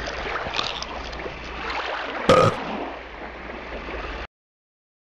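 Outdoor background noise with scattered faint ticks, one short loud sound a little over two seconds in, and the sound cutting off abruptly about four seconds in.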